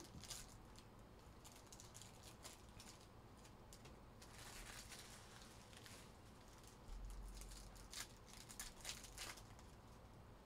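Faint rustling and crinkling of trading-card pack wrappers and cards being handled, with scattered light ticks.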